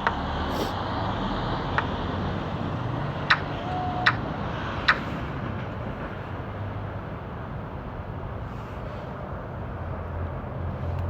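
Five sharp taps in the first five seconds, fingertip taps on a phone screen while moving chess pieces, over a steady low background rumble.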